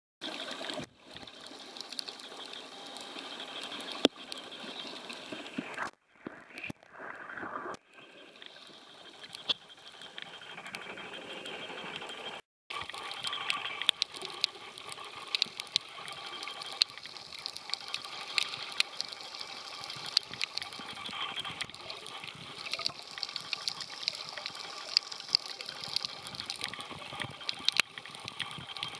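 Water heard by a camera at and just below the surface while a snorkeler swims: sloshing and bubbling, with many scattered clicks. The sound cuts out briefly about twelve seconds in.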